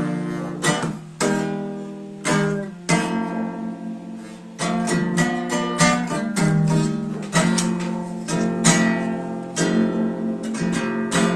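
Acoustic guitar strummed by hand, a run of chord strokes with the notes ringing on between them, fading near the end.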